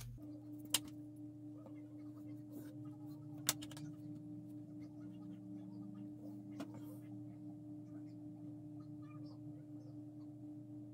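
Faint steady electrical-sounding hum, with three short sharp clicks: one under a second in, one about three and a half seconds in, and one about six and a half seconds in.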